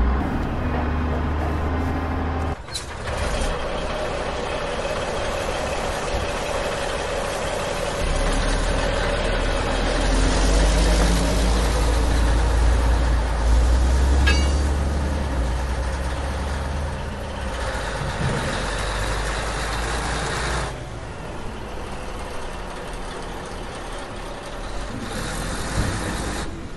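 Truck engine sound effect running steadily with a low rumble, changing abruptly about three seconds in and again about twenty-one seconds in.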